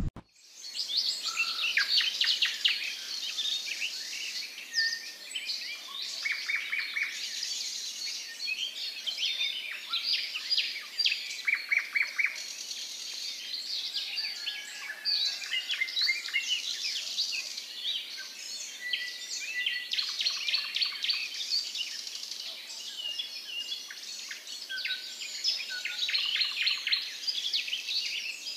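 Many birds chirping and calling at once, a dense overlapping chatter of short high chirps and whistles, broken now and then by short runs of rapid rattling notes.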